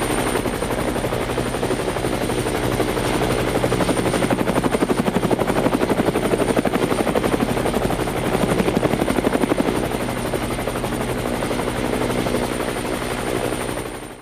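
Helicopter sound effect: a fast, steady chop of rotor blades with a thin high whine over it. The chopping grows stronger in the middle, and the sound fades out abruptly at the very end.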